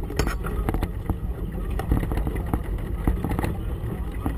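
A boat in choppy water: a low rumble of wind buffeting the camera's microphone, with uneven knocks and slaps of water against the hull.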